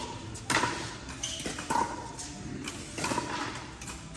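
Pickleball rally: paddles striking the hollow plastic ball, four sharp pocks at uneven spacing, some with a short ringing tone.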